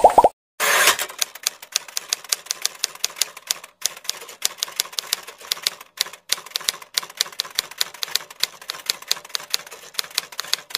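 Typewriter key-clicking sound effect, rapid irregular clicks several times a second, accompanying text being typed out on screen. A brief pop is heard at the very start.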